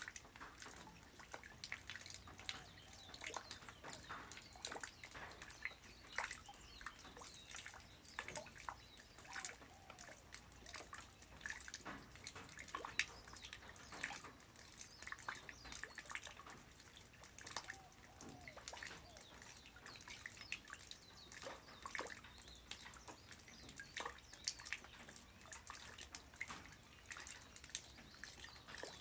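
Light rain falling on the ground: an irregular patter of separate drops and drips, with no steady rush.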